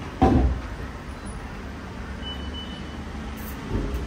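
Steady low rumble of road traffic, with a brief voice just after the start and two short high beeps around the middle.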